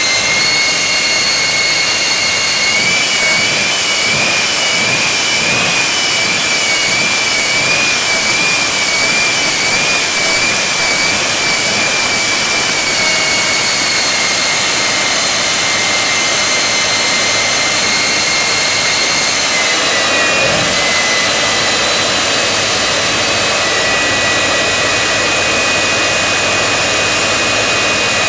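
Jet engine of a jet-powered semi truck running hard, with afterburner flames shooting from its stacks: a loud, steady jet noise with a high turbine whine that wavers in pitch, then drops to a lower, steadier whine about twenty seconds in.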